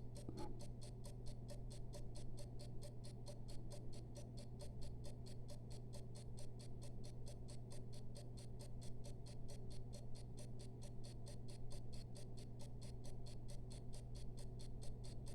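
Kienzle 606C mechanical clock movement ticking steadily at 16,200 beats per hour, about four and a half ticks a second, picked up close by a timing machine's microphone over a steady low hum. The movement is running well after repair.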